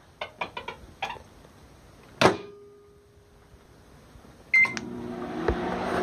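A few light clicks, then the microwave oven door shut with one loud clunk about two seconds in. Near the end a short beep and the oven starts up with a steady running hum.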